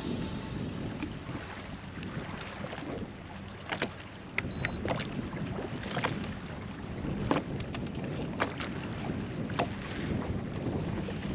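Wind buffeting the microphone and water moving against a fishing boat's hull, with a few sharp clicks or knocks scattered through it.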